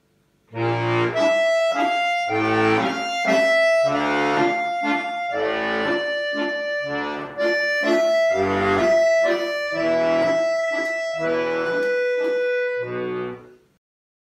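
Bayan, a Russian chromatic button accordion, playing a waltz melody in the right hand over left-hand bass notes and chords. It starts about half a second in and stops shortly before the end.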